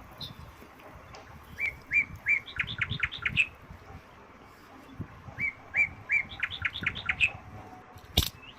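A songbird singing the same phrase twice, each a few even whistled notes followed by a quick run of higher notes. A single sharp click near the end.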